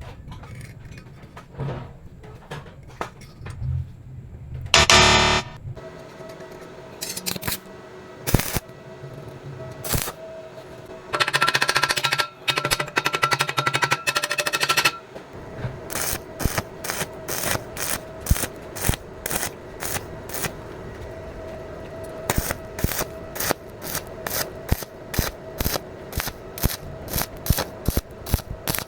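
Music with held tones and percussive hits, settling in its second half into a steady beat of about two hits a second.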